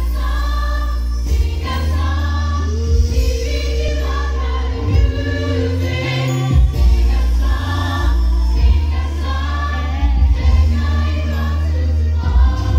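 Live choir and lead singers performing a song over a heavy, sustained bass accompaniment.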